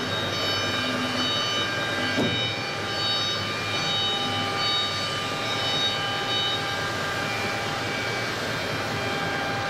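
CNC machine's stepper motors whining in short stretches as the axes are jogged toward the work origin, over a steady mechanical hum.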